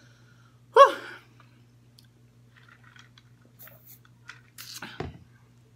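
Close-up mouth sounds of a person eating: a short loud voiced sound about a second in, then faint chewing and lip clicks, and a sip drawn through a straw near the end.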